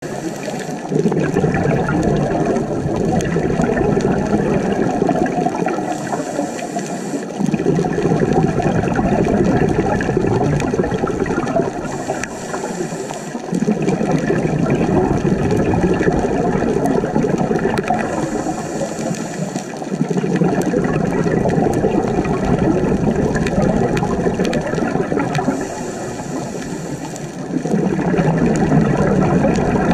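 A scuba diver's regulator breathing underwater: long gurgling rushes of exhaled bubbles lasting four to five seconds, each followed by a short hissing inhalation, about every six to seven seconds.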